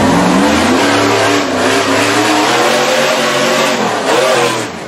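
Rock bouncer buggy's engine revving hard under load on a steep climb, its pitch rising and falling as the throttle is worked, with a brief dip near the end.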